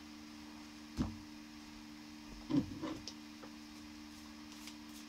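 A few faint knocks and taps of tarot cards being handled on a table: one sharp knock about a second in, then a short cluster of taps about two and a half seconds in. A steady low hum runs underneath.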